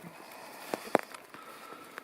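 Footsteps on a snow-covered woodland trail: a few short, soft crunches against a faint steady hiss of outdoor air.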